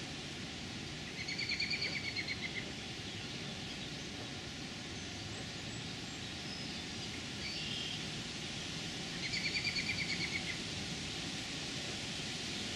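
Steady rush of river rapids, with a bird's fast trilled call heard twice, each lasting about a second and about eight seconds apart, and a fainter short call between them.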